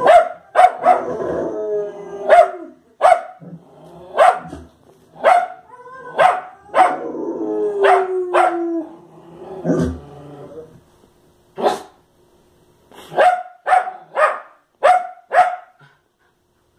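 Wire fox terrier barking sharply at a television: about two dozen barks, a lull of a couple of seconds after the middle, then a quick run of barks near the end.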